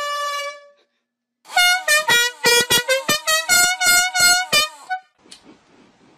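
A loud air horn blast cuts off within the first second. After a brief gap, a horn sounds in a rapid series of about a dozen short honks over roughly three seconds, and then stops.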